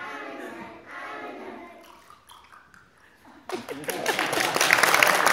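A group of small children singing the last phrases of a song, then audience applause breaking out about three and a half seconds in, louder than the singing.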